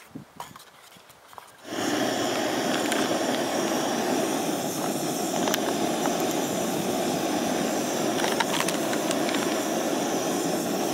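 Canister gas camping stove (an MSR) burning at full flame under a pot: a steady, loud rushing hiss that starts abruptly about two seconds in, with a few light metallic clinks.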